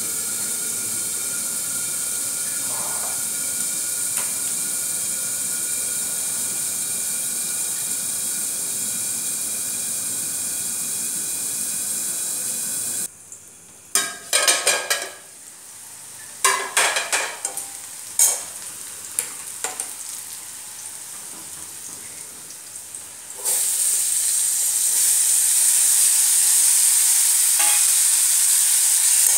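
Vegetables frying in oil in an aluminium kadhai, a steady sizzle muffled under the lid. About halfway the sound drops away, then metal clatters several times as the lid comes off and a metal spatula strikes the pan. Near the end the sizzling comes back louder as the uncovered vegetables are stirred.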